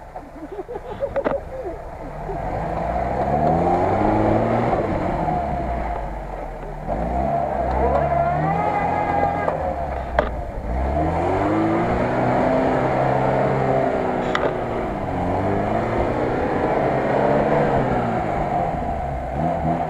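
Lada Niva (VAZ 2121) engine revving up and falling back about four times as it pulls through deep mud, with a brief higher whine rising over it about eight seconds in.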